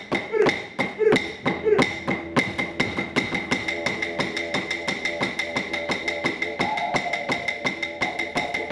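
Wooden clapsticks beating a steady rhythm for Aboriginal dance, about three strikes a second, quickening to about four or five a second a little over two seconds in, over sustained musical tones.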